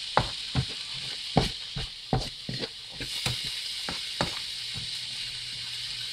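Chopped vegetables sizzling in hot oil in a pan while a utensil stirs them, clicking and knocking against the pan, several times a second at first, then less often.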